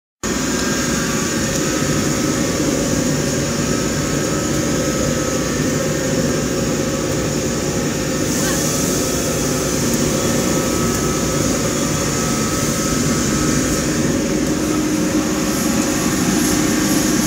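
Hot-air popcorn production line running: a loud, steady rushing machine noise with several steady hums in it.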